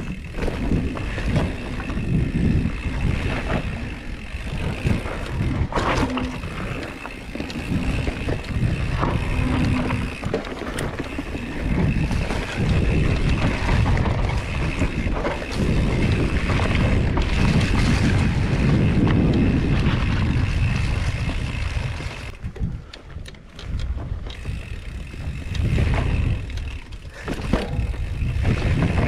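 Mountain bike riding fast down a dirt trail: tyres rolling and rattling over the ground, with wind buffeting the microphone. A sharp knock comes about six seconds in, and the noise eases off briefly near the end.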